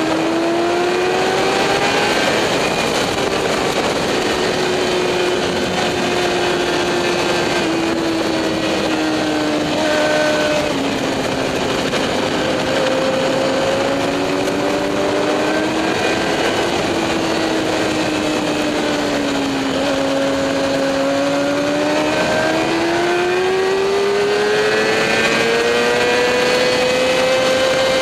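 Motorcycle engine heard onboard at speed on a race track, its pitch falling and rising as it slows for corners and accelerates out, climbing steadily near the end, over a steady rush of wind.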